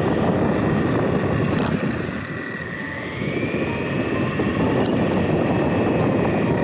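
Onboard sound of a small electric RC car driving fast over concrete: a rough rolling rattle of the tyres and chassis under a faint electric motor whine. The level dips briefly, then the whine rises in pitch about three seconds in as the car speeds up again.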